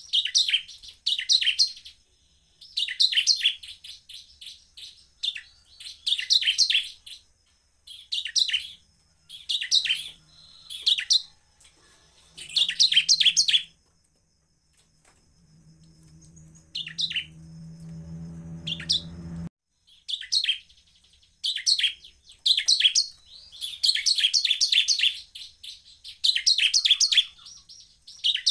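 Bar-winged prinia (ciblek) calling in rapid bursts of sharp, high chirps, roughly one burst a second, with a short pause near the middle. During that pause a low hum grows louder and then cuts off suddenly.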